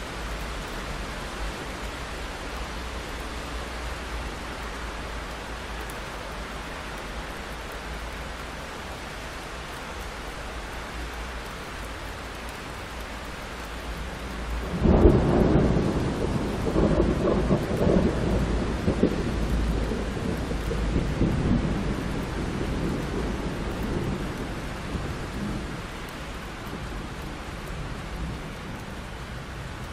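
Steady rain on a window, then a sudden thunderclap about halfway through that rolls on as rumbling thunder for several seconds, slowly fading back under the rain.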